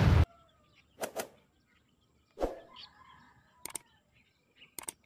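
A loud burst of noise from the channel's logo sting cuts off sharply just after the start. Then come short mouse-click sound effects from a like-and-subscribe animation, mostly in pairs, four times over the next few seconds.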